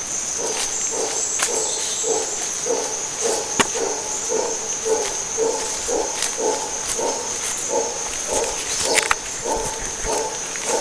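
Howler monkey troop roaring in a long rhythmic series of deep grunting pulses, about two a second. A steady high insect drone runs underneath.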